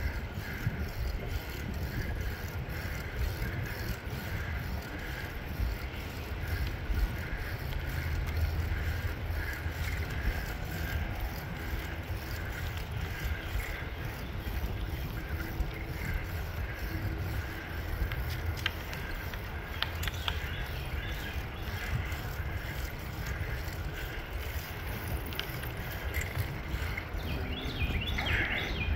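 Low wind rumble on the microphone from moving along a paved trail, with faint regular ticks and a steady high chirring in the background; a brief high call near the end.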